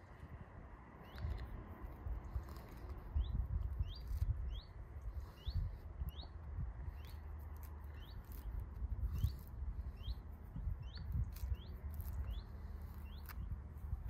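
A small bird repeating a short rising chirp about twice a second, over low rumbling and faint crackles as a clementine's peel is torn off by hand.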